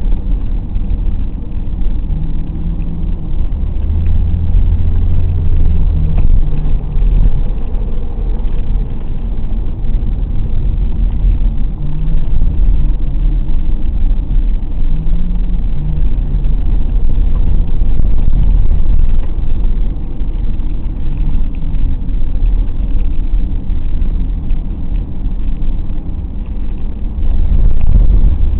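Car engine and tyre noise heard from inside the cabin while driving, with the engine note rising and falling several times as the throttle changes.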